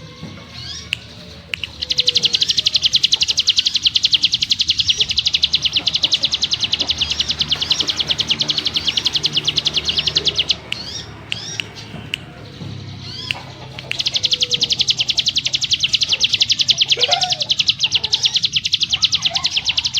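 Cigun (ciblek gunung) songbird singing its 'ngebrem' song: two long, very fast, high buzzing trills, one from about two seconds to ten seconds in and another from about fourteen seconds on. Between them come short rising chip notes.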